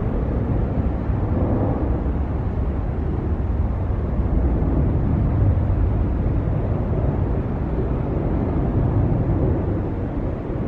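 Jet airliner climbing out after takeoff: a steady low rumble of its engines, slowly fading toward the end.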